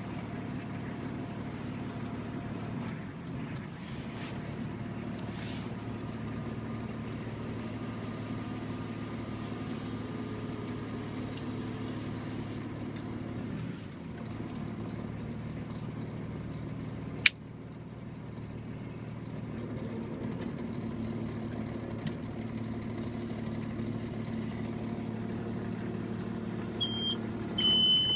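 Off-road vehicle's engine running steadily during a mud recovery, heard from inside the cab. There is a single sharp click about two-thirds of the way through, and a few short, high electronic beeps near the end.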